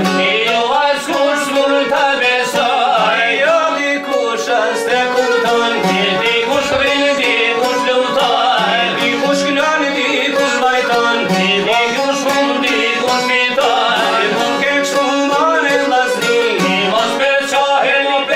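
Albanian folk song: çifteli, the two-stringed long-necked lutes, plucked in a steady rhythm with a violin playing along and a man singing.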